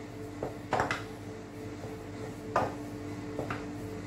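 Utensil knocking and scraping against a stainless-steel saucepan as egg is beaten by hand into choux pastry dough. There are several knocks, the loudest about a second in and again past the middle, over a steady low hum.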